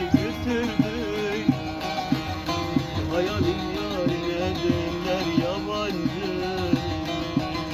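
Live music: a plucked string instrument, guitar-like, strummed in a steady rhythm of about two strokes a second, with a wavering melody line over it.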